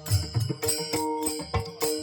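Devotional kirtan music without singing: a rhythm of drum strokes with jingling metal percussion over held instrumental tones.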